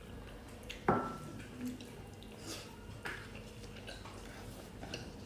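A utensil clinks sharply against a dish about a second in, with a short ring, followed by a few fainter clinks of eating at the table.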